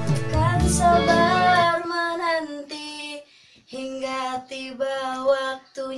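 A produced song with instruments and a strong bass ends about two seconds in. Then a girl sings alone in short phrases with brief pauses, a backing-vocal audition take recorded on a phone.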